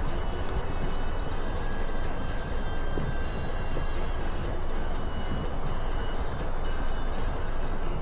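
Steady outdoor rumble of wind on the microphone and flowing river water, heavy in the low end and even throughout, with a few faint thin high tones above it.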